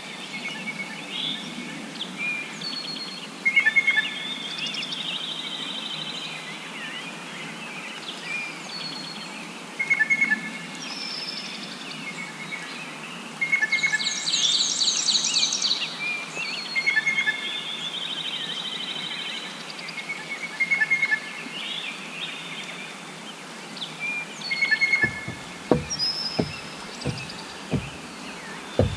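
Several wild birds singing and calling in open marsh and prairie, with a short two-note call repeated every few seconds, trills, and a louder buzzy song about halfway through. Low thumps start near the end.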